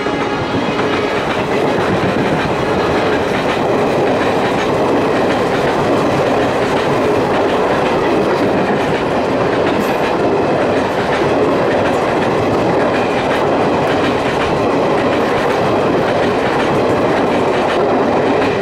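Express train coaches passing at speed close by: a steady loud rush of wheel and rail noise, with clattering of the wheels over the rail joints. The tail of a diesel locomotive's horn fades out in the first second or so.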